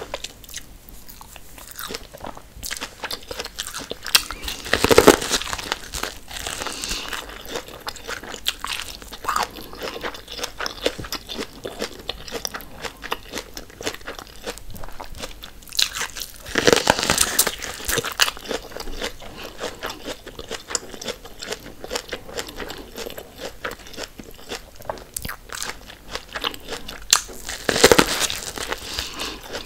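Close-miked biting and chewing of sauce-coated boiled corn on the cob: a steady run of small crunchy, wet chewing clicks, with three louder crunching bites spread about twelve seconds apart.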